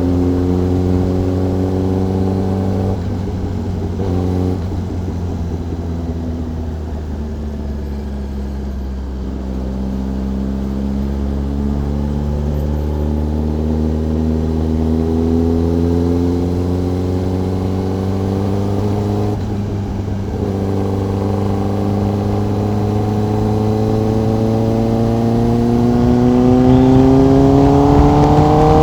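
Sport motorcycle engine and exhaust heard from the rider's seat under steady throttle. The engine note eases down a little over the first third, then climbs slowly and steadily as the bike accelerates, and breaks off abruptly right at the end.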